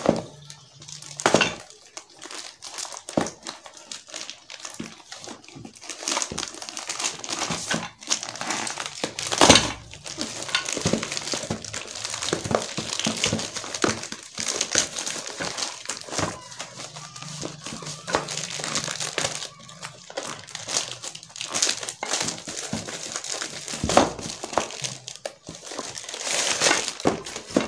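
Plastic courier mailer bag being crinkled and pulled open by hand: irregular rustling and crackling, with a few sharper, louder crackles.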